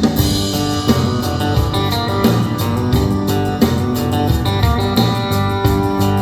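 Guitar music played through a two-way coaxial car speaker on test.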